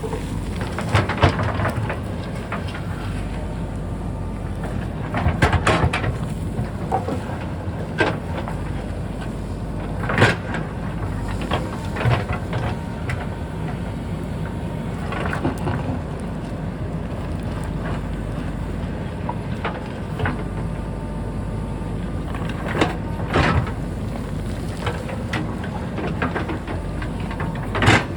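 JCB backhoe loader's diesel engine running steadily under load, with irregular sharp knocks and clanks from the digging every few seconds.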